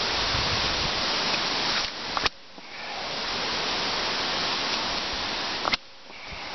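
Two sharp chops of a heavy survival knife blade striking a small birch trunk, about three and a half seconds apart, over a steady hiss that drops away briefly after each blow.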